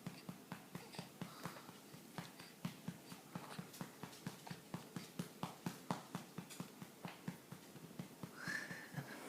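Steady rhythmic patting on a baby's back, about three to four pats a second, to bring up a burp. A brief high voice sound comes near the end.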